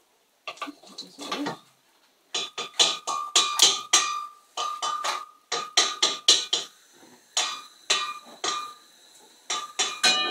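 Sharp metallic clicks and clinks at a stainless steel gas hob while a burner is being lit, coming several a second in irregular runs, each with a short ringing tone.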